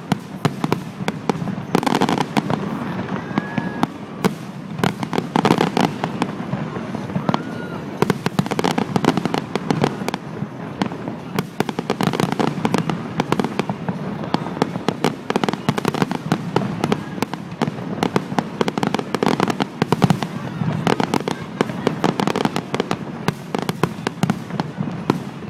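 Fireworks bursting in rapid, continuous succession, a dense barrage of overlapping bangs and crackles.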